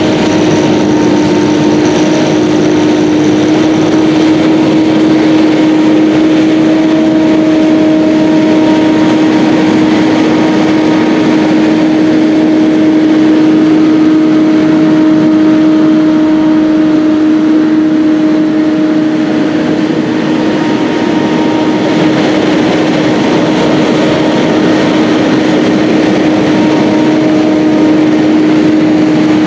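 John Deere 7930 tractor's six-cylinder diesel engine working hard under load while pulling a PTO-driven power harrow through the soil. It gives a loud, steady drone at an even pitch as the tractor drives past.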